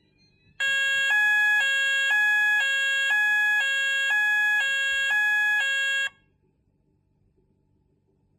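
Electronic alarm sounder going off in a two-tone alternating pattern, switching between a low and a high tone every half second. It starts abruptly, runs about five and a half seconds, and cuts off suddenly.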